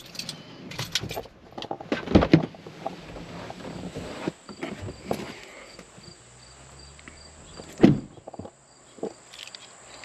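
Someone getting out of a pickup truck cab: several clicks and knocks in the first couple of seconds, a single loud thud about eight seconds in, and footsteps on gravel, with insects chirping steadily.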